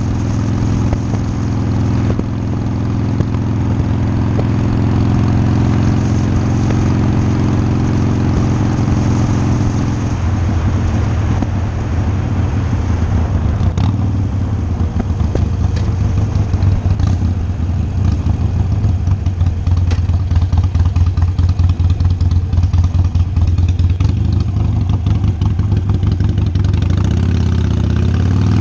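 Motorcycle engine running under way. It holds a steady note for about ten seconds, then drops to a lower, pulsing beat.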